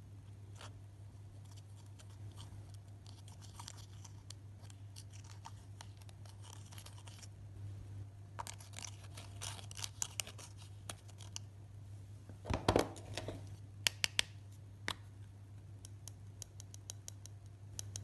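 Slime and eyeshadow powder being worked by hand: scattered crisp clicks, crackles and scratching that come thicker in the middle, with a louder burst about twelve and a half seconds in and a few sharp clicks after it. A low steady hum lies underneath.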